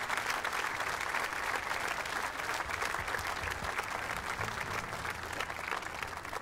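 Audience applauding, a dense steady clatter of many hands clapping that slowly eases off toward the end.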